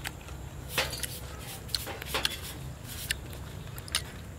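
A person chewing a mouthful of food, with scattered short wet mouth clicks and smacks. Near the end, a metal spoon scrapes and clicks against a plate.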